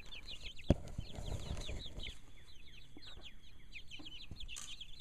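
Young chickens, a couple of months old and mostly barred rocks, peeping with many short, high, falling cheeps over and over. A single sharp click comes under a second in.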